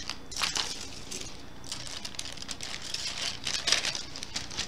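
Thin clear plastic packaging crinkling and rustling as small bagged items are handled, in irregular bursts, loudest about half a second in and near the end.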